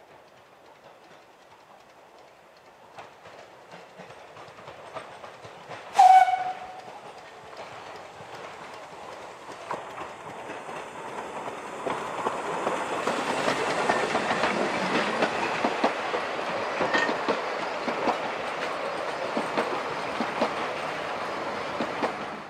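Narrow-gauge steam locomotive No 4 Palmerston, a small saddle tank, gives one short whistle blast about six seconds in. It then draws closer and runs past with its train of carriages, the sound growing and staying loud, with the wheels clicking over the rail joints.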